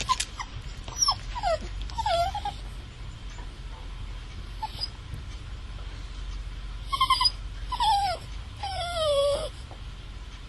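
A dog whining and whimpering: short high cries that slide down in pitch, several in the first two and a half seconds and a few more near the end, the last one drawn out longer, over a steady low hum.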